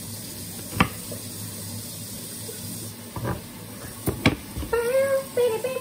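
Chef's knife cutting broccoli on a chopping board: a few sharp knocks over a steady hiss. Near the end come a few drawn-out high-pitched notes.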